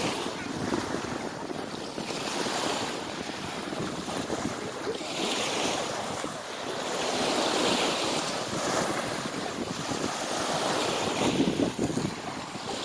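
Small waves washing up onto a pebble shore, swelling and falling back several times, with wind buffeting the microphone.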